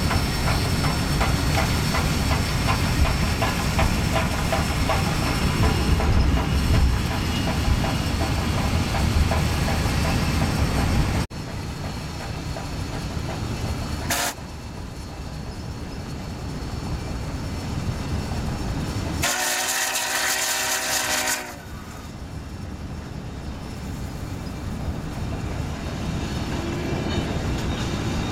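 Union Pacific 844, a 4-8-4 steam locomotive, running past close by with a loud, fast, even beat. After a sudden cut the train is heard from a car driving alongside, and about two-thirds of the way through its steam whistle blows for about two seconds.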